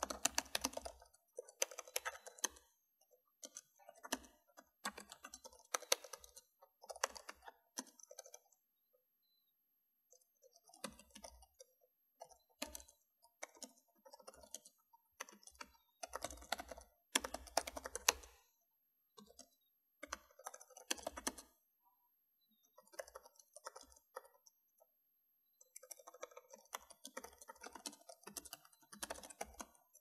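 Typing on a computer keyboard: runs of quick key clicks, broken now and then by pauses of a second or two.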